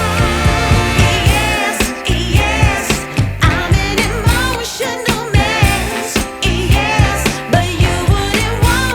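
Background pop music with a singing voice and a steady beat.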